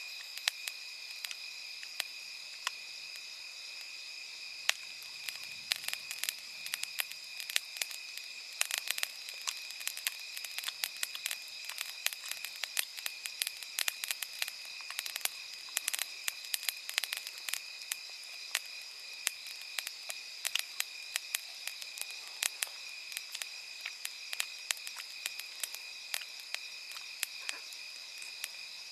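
Wood campfire crackling with irregular sharp pops, busiest in the middle, over a steady high chirring of night insects.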